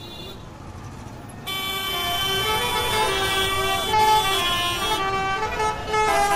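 Busy road traffic with many vehicle horns honking over one another at different pitches, getting louder about a second and a half in.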